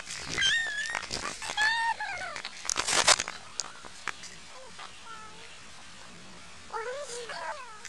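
Several drawn-out, wavering meows in the first two seconds, then a loud noisy burst about three seconds in, and another short run of meows near the end.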